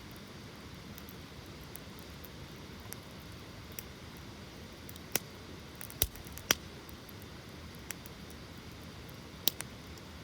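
Wood campfire burning: a steady low hiss with scattered sharp crackles and pops, a few loud ones around the middle and another near the end.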